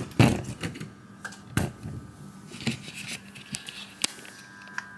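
Scattered clicks and clacks of hard tools and loose car parts being handled and set down, with the loudest knock about a quarter second in and a few lighter ones after.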